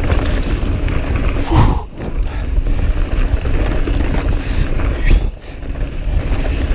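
Mountain bike descending a dry dirt trail at speed: steady wind rush on the camera microphone with the tyres rumbling and the bike rattling over the dirt. The noise dips briefly twice, about two and five seconds in.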